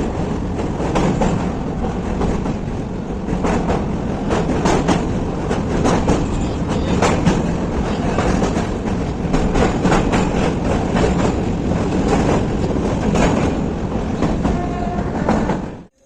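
Passenger train running along the track, heard from aboard: a loud steady rumble with the clickety-clack and clatter of wheels over rail joints. It cuts off suddenly at the very end.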